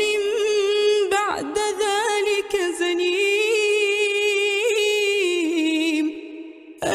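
A woman's solo voice reciting the Quran in a melodic tajweed chant, drawing out long, ornamented notes with small turns. The pitch steps slightly lower in the later part, and there is a brief breath pause just before the end, where the voice comes back in.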